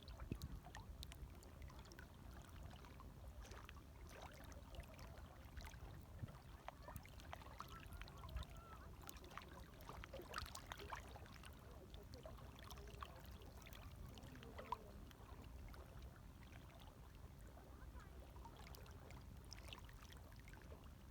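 Faint, gentle water waves lapping, a low steady wash with many small trickling splashes and drips.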